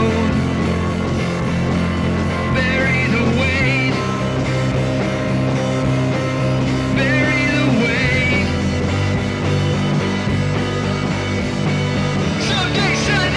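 Background rock music with held bass notes that change every few seconds.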